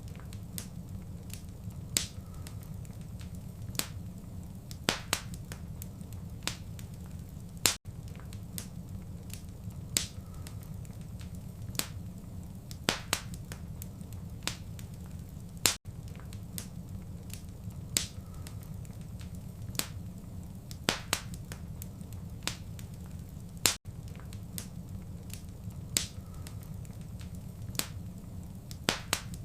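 Wood fire in a fireplace crackling, with irregular sharp pops and snaps over a steady low rumble of the flames. A brief dropout comes about every eight seconds where the recording loops.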